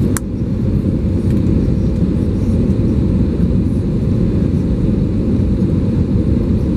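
Steady low cabin rumble of an Airbus A320neo, heard from a window seat over the wing while descending on approach to land. A single sharp click sounds just after the start.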